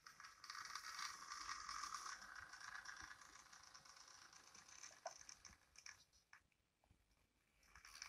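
Two-motor Piko BR 130 motor bogie driving an HO-scale model diesel locomotive along the track, with the rattling, chattering run typical of old Piko drives. The sound is faint, louder in the first three seconds, dies away about six and a half seconds in, and returns near the end.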